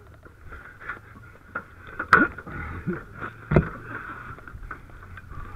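Aluminium extension ladder with a rope halyard being handled, with rustling and scraping throughout. Two sharp knocks stand out, about two and three and a half seconds in.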